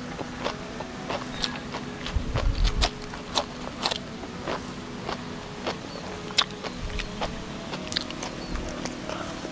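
Close-up chewing and crunching of crisp food, with many sharp crunchy clicks and a loud burst of crunching about two seconds in. The food is raw green onion and crispy battered fried shrimp (udang kremes).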